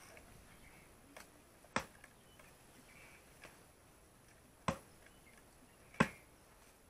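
Large chopping knife striking down through herbal soap-plant stems onto a wooden block: three sharp chops, the first about two seconds in and the last two just over a second apart, the final one loudest, with a few fainter knocks between.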